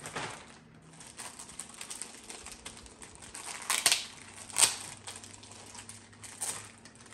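Clear plastic bag crinkling and crackling as it is handled and opened by hand, with a few sharper crackles around the middle.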